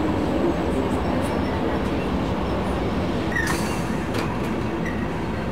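Train running on rails: a steady rumble with a brief hiss about three and a half seconds in.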